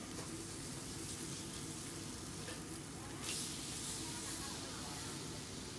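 Meat sizzling on a hot flat-top griddle as tongs turn it, with a louder flare of sizzling about three seconds in.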